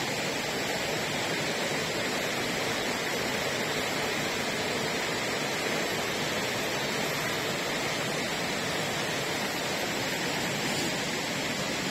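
Shallow rocky river rushing over and between boulders in a small cascade: a steady, even rush of water.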